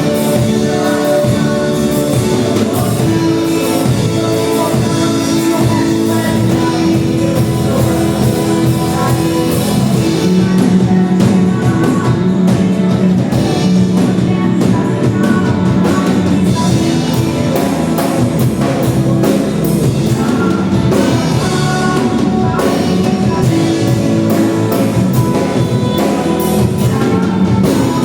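Gospel worship band playing a song, with drum kit, guitar and singing.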